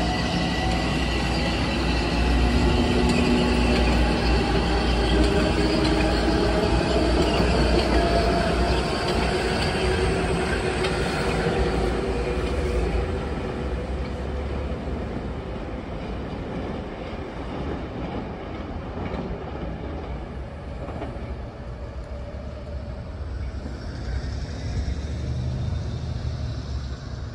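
Metro-North commuter train running past on the rails, with steady wheel-and-rail rumble and a faint whine. It is loudest for about the first half, then dies down.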